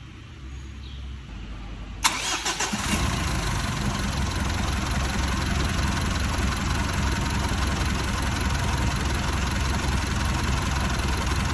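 Mitsubishi 4D56 four-cylinder diesel engine starting about two seconds in with a sharp burst, then running steadily at idle. The engine is said to knock and to be hard to start.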